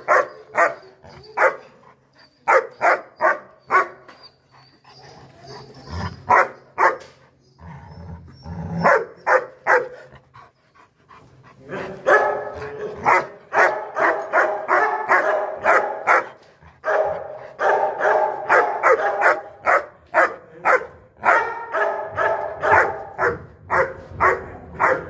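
Male German Shepherd barking repeatedly in quick runs of about two to three barks a second, with short pauses between runs and the most sustained barking in the second half.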